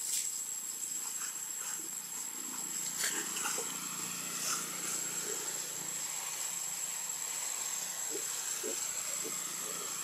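Forest insects droning with one steady high note over a hiss of ambience. A few short rustles and twig snaps come through, most of them about three to five seconds in, as macaques climb through the branches.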